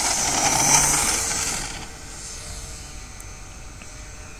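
Electric RC Cessna 182 model's Racerstar BR2826 brushless motor and propeller running hard on the takeoff run: a high whine over rushing noise. It peaks about a second in and fades to a lower steady level as the plane climbs away.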